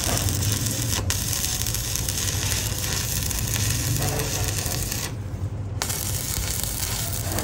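Stick (manual arc) welding on a steel air compressor tank: the arc crackles and sizzles steadily over a low hum. It cuts out briefly about five seconds in and strikes again.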